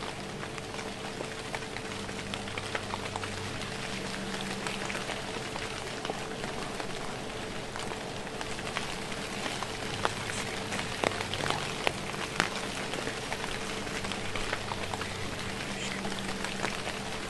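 Steady light drizzle pattering, with many small drop ticks and a few sharper ones about ten to twelve seconds in, over a faint steady hum.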